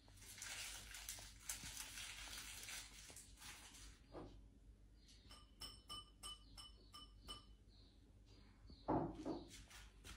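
Quiet kitchen sounds: a soft hiss for the first few seconds, then a run of light clinks of dishes, a ceramic bowl and utensils ringing briefly, and a louder bump near the end.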